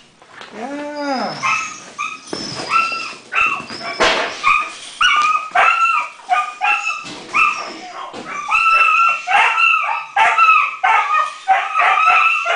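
A puppy whimpering and yipping: one rising-and-falling whine near the start, then a long run of short, high-pitched yips, about two a second.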